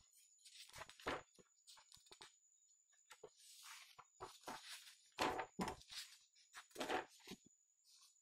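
Pages of a printed question booklet being flipped and handled: a string of short paper rustles and taps, with a longer sliding rustle a little after three seconds in.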